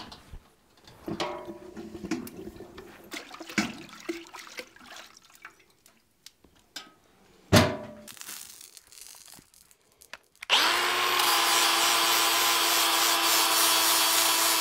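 Scattered metal knocks and clanks around a steel oil-quench bucket, with one loud clank about halfway through as its lid goes on. About ten seconds in, a Milwaukee M18 Fuel cordless angle grinder spins up and runs steadily against the hardened steel face of a freshly quenched small anvil. It is grinding the scale off so the tempering colours can be seen.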